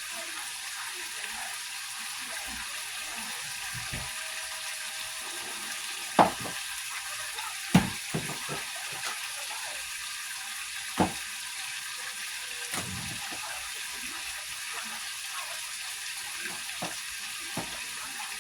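Butter sizzling in a hot pan on the stove, a steady frying hiss, with three sharp knocks of a utensil or pan about six, eight and eleven seconds in.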